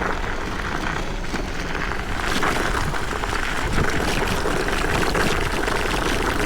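Electric scooter riding over rough dirt and gravel, with wind rushing over the microphone. From about two seconds in, tyres crunching on gravel and many small knocks and rattles from the bumpy ground.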